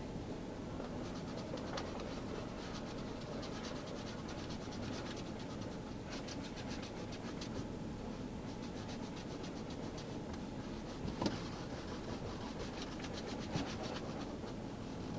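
Fingertips rubbed hard and fast against the metal cage of a patrol car's rear seat, making rapid scratching in long runs, with two sharper knocks near the end, over a steady background noise. This is an attempt to scrape away fingerprints.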